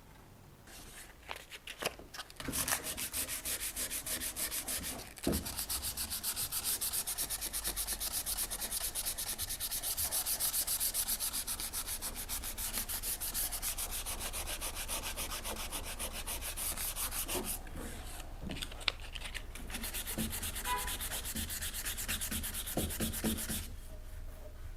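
Sandpaper rubbed by hand over a stone tray in rapid back-and-forth strokes, grinding off hardened epoxy resin left from gluing the broken pieces. A few light knocks at first, then steady sanding with two brief pauses, which stops shortly before the end.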